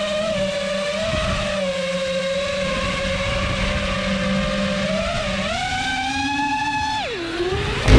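FPV quadcopter's brushless motors and propellers whining at a steady pitch. The pitch climbs as the throttle is pushed about five and a half seconds in, then drops sharply as the throttle is cut near the end.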